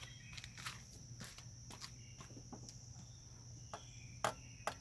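Scattered light clicks and taps of hands working plastic connectors and fittings on an engine, with two sharper clicks near the end. A steady high-pitched tone and a low hum run underneath.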